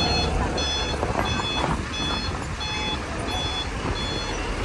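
Truck reversing alarm beeping in a steady rhythm, a little under twice a second, as a large cargo truck backs up, over the low rumble of its engine.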